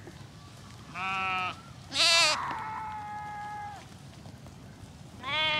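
Garol sheep bleating: three bleats, the middle one loudest, trailing into a long held note.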